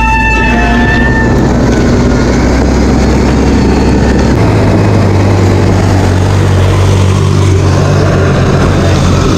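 Steady, loud wind and rolling noise of a mountain bike ridden over a gravel dirt road, over the low drone of road-construction machinery engines. A brief beeping tone sounds right at the start.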